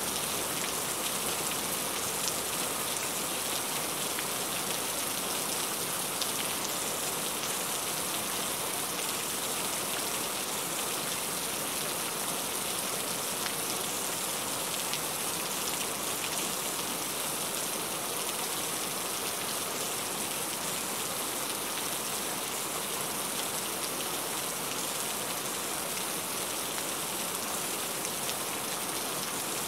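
Heavy rain falling steadily, an even hiss with a few sharper drop ticks scattered through it.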